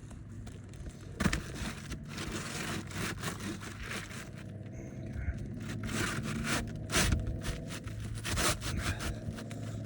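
Asphalt roofing shingle scraping and rustling against the shingles around it as it is slid and worked into place, with a few sharper knocks.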